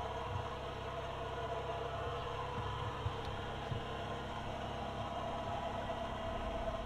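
Linde H30T forklift's LPG engine idling steadily.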